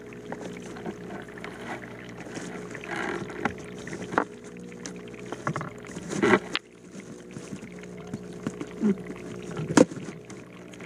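Expanded clay pebbles (Hydroton) in an aquaponics grow bed shifting and clicking as hands dig through them to pull the cap off the siphon standpipe, with a few sharper knocks about four, six and ten seconds in. A steady low hum runs underneath.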